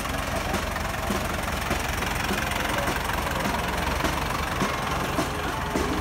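Farm tractor's diesel engine running steadily at low revs, with faint voices in the background.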